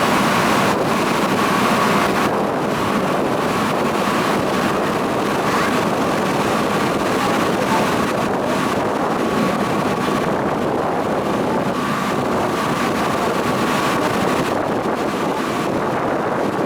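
A sightseeing cruise boat under way: a steady engine drone with a faint, even whine, and wind buffeting the microphone.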